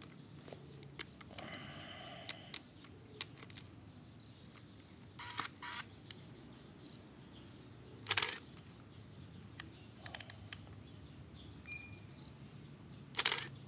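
Canon EOS 5 film SLR being operated: light clicks of its dials and buttons, then the shutter firing with the built-in motor winding the film on, about eight seconds in and again near the end, the loudest sounds here.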